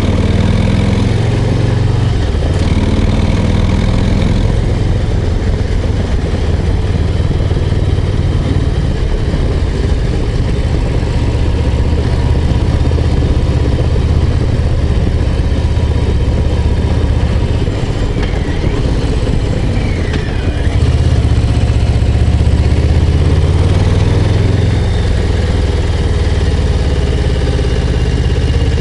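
Harley-Davidson Low Rider ST's Milwaukee-Eight 117 V-twin running under way. Its note dips briefly about twenty seconds in and comes back louder.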